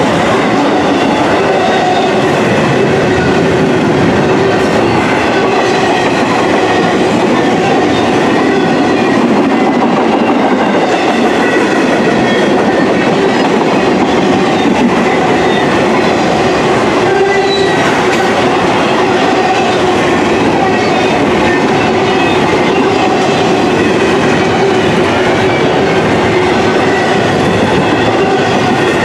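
Double-stack intermodal container well cars and trailer flatcars rolling past, a steady, loud clatter and rumble of steel wheels on rail.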